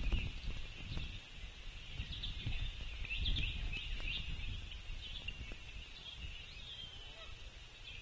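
Small birds chirping and trilling in the background over a low outdoor rumble, with a few dull knocks.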